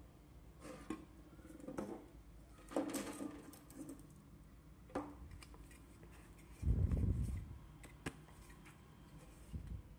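Handling noise as an old loudspeaker driver is picked up and turned over on a tabletop: scattered light clicks and knocks, with a low thud about seven seconds in as the loudest sound.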